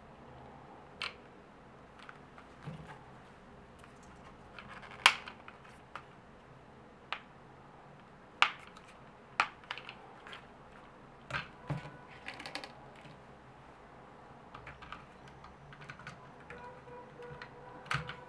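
Irregular light plastic clicks and a few sharp snaps as the white plastic body and propeller guards of a Syma X5C toy quadcopter are handled by hand. The loudest snap comes about five seconds in, and there is a small cluster of clicks a little past the middle.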